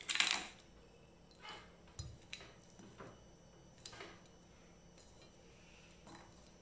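Crushed ice and water poured from a plastic blender jug onto a stainless steel plate: a short splashing rattle at the very start, then scattered light clicks and taps as ice pieces are pushed around the metal plate.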